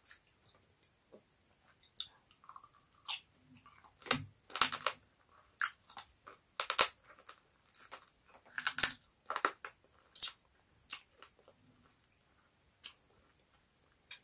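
Close-up eating noises: wet lip smacks, sucking at the fingers and chewing, as a series of short smacks and clicks that come in irregular clusters.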